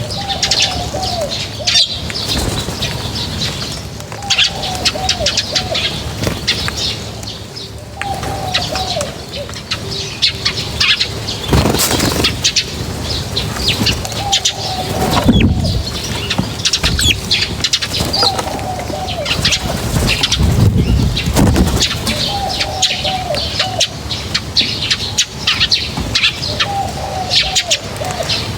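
A flock of small birds chirping and twittering continuously, with a lower call that falls in pitch and returns every three to four seconds. Bursts of wing flapping come several times, the loudest around the middle.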